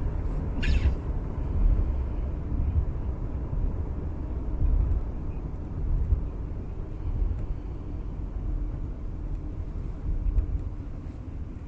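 Road noise inside a moving car's cabin: a steady low rumble of tyres and engine that swells and eases a little. A brief high-pitched sound about a second in.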